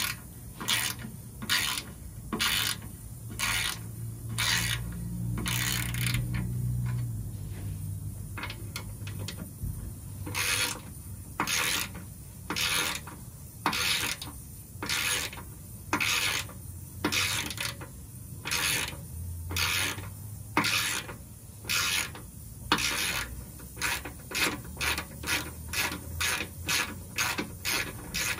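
Hand socket ratchet clicking in repeated back-and-forth strokes as it backs out a bolt on an aluminium truck skid plate. The strokes quicken near the end.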